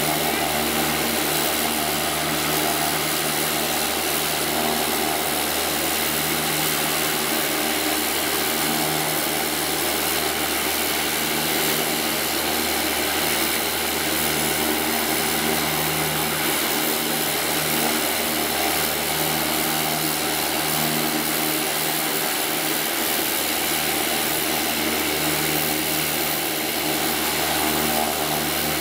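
Fuji T-7 trainer's Allison 250 turboprop engine running steadily on the ground with its propeller turning: a constant low propeller drone with a steady high turbine whine over it.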